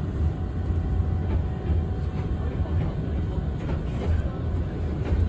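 Interior rumble of a TTC CLRV streetcar rolling along the track: a steady low rumble of the car running on the rails, with faint rattles and ticks above it.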